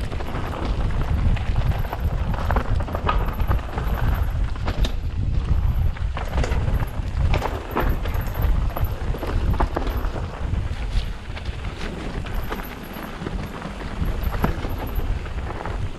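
Mountain bike riding over dirt singletrack: wind buffeting the camera microphone with a steady low rumble, tyres crunching over the trail, and the bike clattering with scattered clicks and knocks as it rolls over roots and stones.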